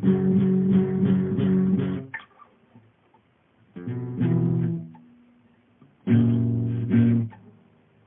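Acoustic guitar music. The guitar strums chords for about two seconds, stops, then plays two separate chords that ring for about a second each, near the middle and near the end, with quiet gaps between.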